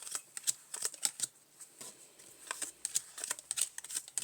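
Playing cards being handled and laid out on a table: a quick, irregular run of light clicks and flicks.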